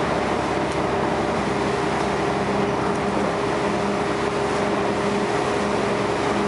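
Scania L113CRL bus's six-cylinder diesel and ZF automatic gearbox heard from inside the saloon while under way at steady speed: a steady drone with a steady whine, and a lower hum that comes and goes, over road noise.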